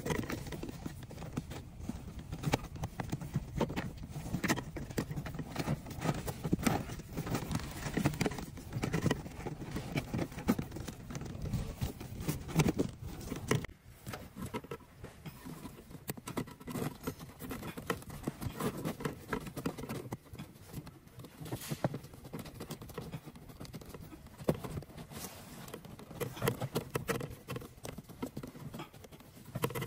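Gloved hands handling a car's plastic cabin air filter housing and filter: irregular clicks, knocks and rustling of plastic parts, a little quieter from about halfway through.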